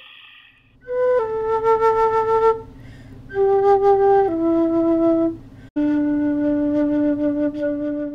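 Native American flute playing a slow phrase of held notes that step downward, ending on a long low note, over a low steady drone.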